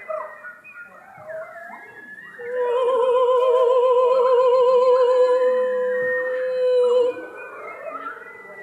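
Choir singing a contemporary piece: voices slide up and down in overlapping howl-like glissandi. About two and a half seconds in, a loud high note with a wide, even vibrato enters and is held for about four and a half seconds before it cuts off, leaving the softer sliding voices.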